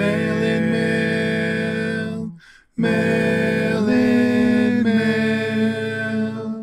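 Intro theme music of held notes, with a short break about two and a half seconds in, cutting off at the end.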